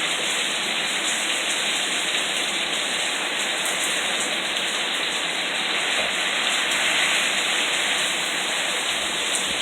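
Heavy thunderstorm rain pouring down steadily.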